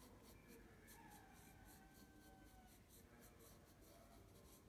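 Faint scratching of a hard graphite pencil on drawing paper as a small circle is sketched.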